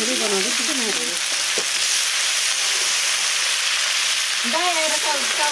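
Noodles sizzling in a large pan over a wood fire as they are stir-fried and tossed with a pair of sticks, a steady hiss.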